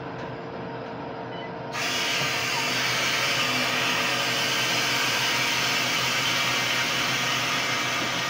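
A Harvest Right home freeze dryer's drain valve is opened, and about two seconds in a sudden loud, steady hiss begins as air rushes into the vacuum chamber, releasing the vacuum at the end of a drying run. Under it the machine hums steadily.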